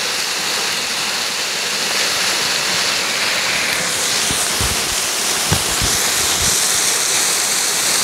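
Waterfall pouring steadily, the falling water crashing onto a person sitting beneath it and churning the shallow pool in a loud, even rush. A few dull low thumps come about halfway through.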